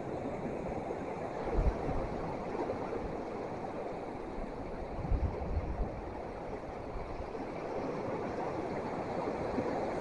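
Steady wash of surf with wind buffeting the microphone, in short gusts about one and a half seconds and five seconds in.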